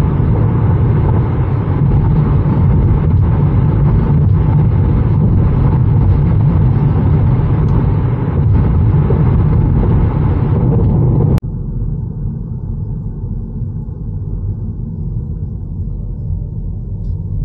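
Steady road and wind noise inside the cabin of a 2023 Kia Niro hybrid at highway speed, tyre roar heaviest in the low end; the owner calls the car's road and wind noise excessive. About eleven seconds in it cuts off suddenly to a quieter, duller low rumble of slower driving.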